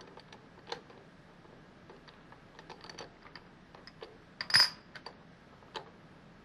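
Steel parallels and a steel workpiece clicking and clinking against each other and the vise jaws as they are set into a milling machine vise, with one louder ringing clink about halfway through.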